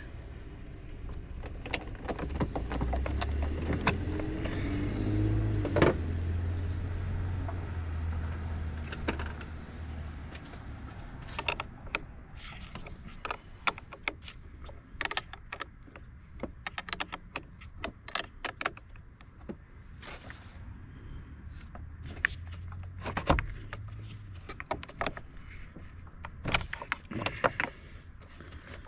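Hand tools on a car battery: scattered ratchet clicks and metal clinks of a socket wrench working the battery hold-down and terminal bolts. A vehicle's low rumble swells and fades between about two and ten seconds in, and briefly again near the end.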